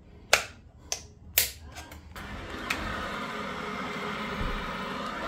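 Three sharp clicks as the boiler's wall switch is worked with a screwdriver, then from about two seconds in a steady whirring as the Worcester Bosch Greenstar combi boiler powers up and runs with its newly fitted circulating pump.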